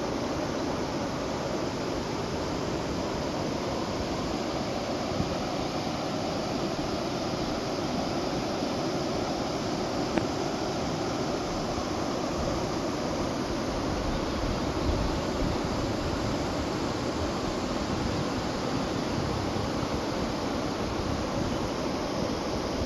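A waterfall: the steady, even rush of falling water.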